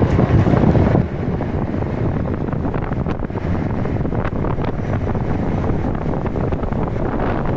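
Wind rushing and buffeting over the microphone of a rider on a moving electric scooter, with steady road noise. It drops a little in loudness about a second in.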